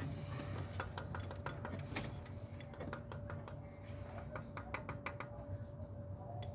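Irregular light clicks and taps of hand tools and metal parts being handled on a truck engine's exposed top end with the valve cover off, over a low steady hum.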